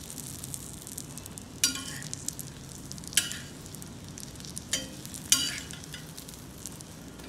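Egg and bread frying in oil on a dosa tawa over raised heat, a steady sizzle, with a steel spatula scraping and clinking against the pan about four times as the egg is folded over the bread.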